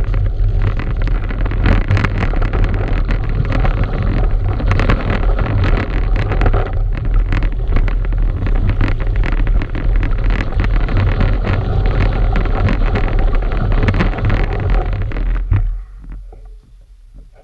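Wind rumbling on the microphone of an action camera riding on a moving mountain bike, mixed with dense rattling and tyre noise from rolling over the road and a snowy gravel track. The noise drops away suddenly near the end.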